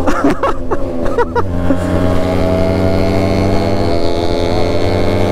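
Yamaha RX135 single-cylinder two-stroke motorcycle engine running on the road. Its pitch shifts for the first second or so, then it holds a steady, even drone.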